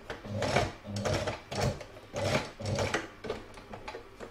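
Domestic electric sewing machine stitching slowly through layered quilted fabric. The motor hums and the needle strokes come in a regular pulse of about three every two seconds, stopping about three seconds in.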